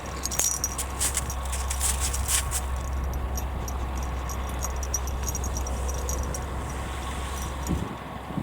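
Light metallic jingling and clicking from ice-fishing tackle being handled, mostly in the first two seconds or so, over a steady low rumble that cuts off near the end.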